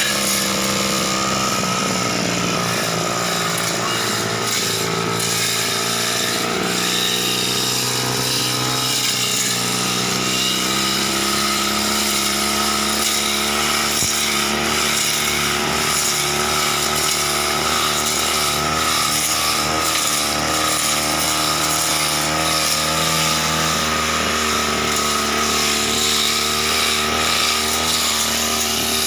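Backpack brush cutter's small petrol engine running steadily at high speed while its cutting head trims low hedge and weeds, the pitch wavering slightly as it meets the plants.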